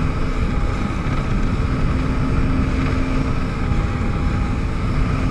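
Yamaha WaveRunner jet ski running at speed, its engine a steady drone under a rush of water and wind.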